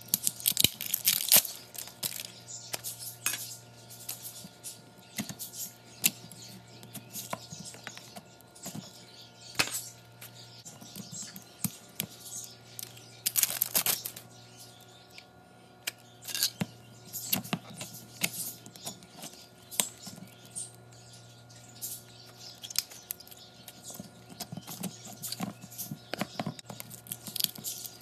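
Slime being squeezed, stretched and pressed by hand, giving irregular sticky clicks and pops, with a louder cluster about halfway through. A faint steady hum runs underneath.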